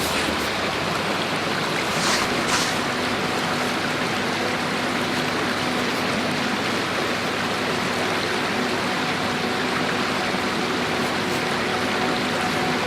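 River water running over stones with a steady rushing sound.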